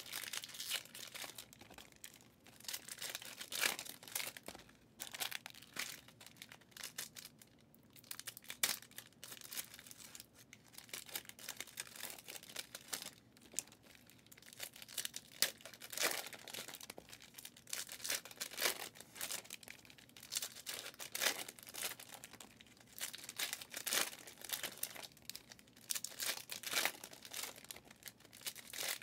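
Foil trading-card pack wrappers crinkling and tearing as packs are ripped open and the cards handled, a run of short, irregular crackly rustles.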